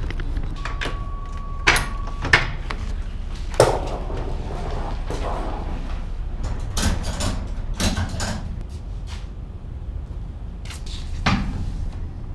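A series of sharp clicks and knocks over a low steady rumble, with a brief steady beep about half a second in.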